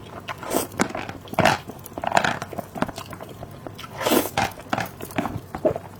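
Close-miked chewing and biting of food in irregular bursts, with short pauses between mouthfuls.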